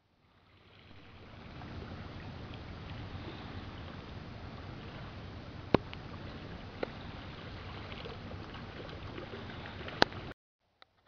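Steady outdoor wash of wind and calm sea water at a rocky shore, fading in over the first couple of seconds and stopping abruptly near the end, with two sharp clicks a few seconds apart.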